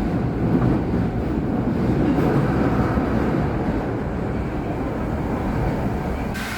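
Osaka Metro subway train running, a steady rumble with no horn sounding.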